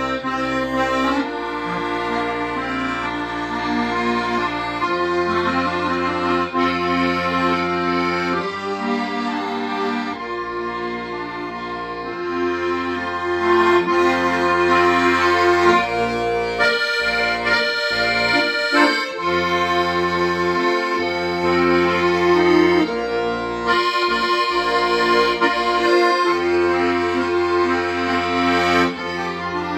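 Accordion playing a melody over sustained chords, with held bass notes that change every few seconds.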